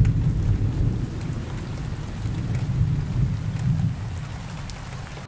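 Rain-and-thunder sound effect: a steady rain hiss over a deep rumble that slowly fades and then cuts off suddenly at the end.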